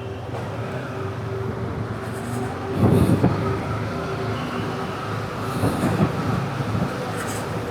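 Yamaha MT-15's single-cylinder engine running while the motorcycle is ridden, with road and wind noise. There is a loud thump about three seconds in and another near six seconds.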